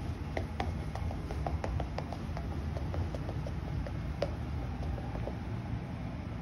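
Rolling chair casters moving over a laminate plank floor: a steady low rumble with a run of small clicks, several a second.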